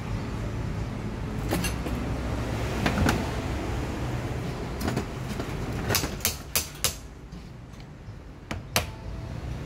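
Scattered sharp clicks and light metallic taps from hands and a screwdriver working at the terminal of a car air-conditioning compressor, with a quick run of four clicks about six seconds in, over a steady low rumble.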